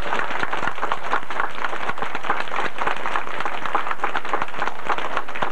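A crowd of people applauding: steady, dense clapping.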